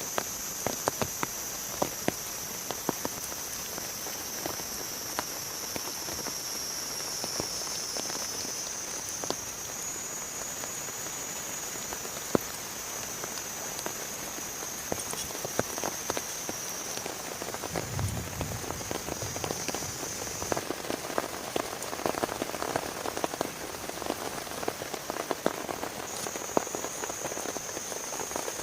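Steady rain with many individual drops tapping sharply on a close surface, thicker in the last third. A steady high-pitched tone runs above it, and there is a brief low thump about two-thirds of the way through.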